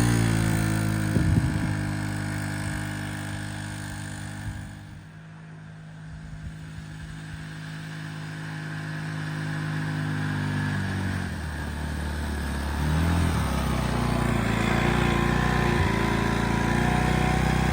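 Small engine of a 2005 Arctic Cat 90 youth ATV running as it is ridden past. Its pitch falls and the sound fades as it moves away. About eleven seconds in it comes back louder and holds a steady pitch at its speed-limited top speed.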